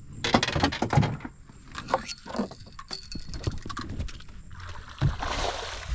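Knocking and clattering of fishing gear and a landing net against a fiberglass boat deck, with a short rush of hissy noise about five seconds in.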